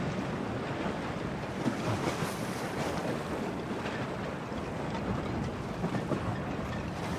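Storm wind gusting across the microphone over the steady rush of waves in the harbour.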